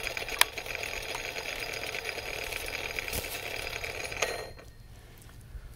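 McCulloch Eager Beaver Super two-stroke chainsaw (2.3 cubic inches, about 38 cc) idling steadily with its bar and chain off, with a sharp click less than half a second in. The engine is shut off about four and a half seconds in.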